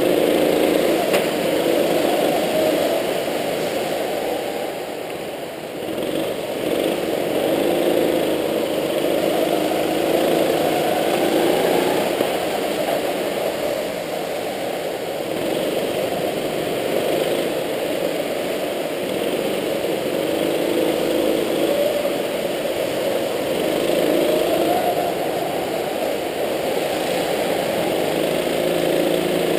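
Go-kart engine running at speed, its pitch rising and falling as the throttle opens on the straights and eases through the corners.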